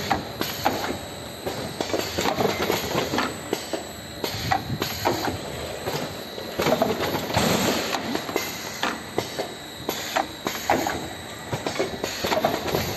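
Automatic cartoning machine running: a busy, continuous clatter of sharp mechanical clicks and knocks as it forms and fills boxes.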